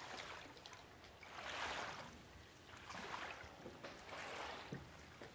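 Paddle strokes in floodwater: a wooden paddle swishing through the water about every second and a half, with small drips and knocks between strokes.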